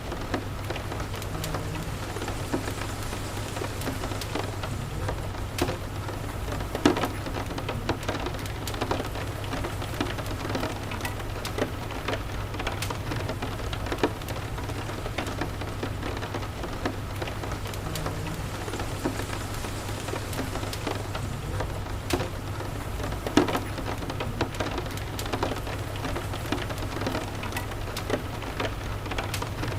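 Steady rain pattering, with a wood fire crackling in irregular sharp pops over a steady low rumble.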